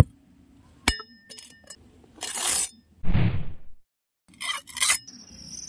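A sharp metallic clink with a short ring about a second in, followed by a hissing swish, a low whoosh and two more quick swishes. A steady high tone sets in near the end.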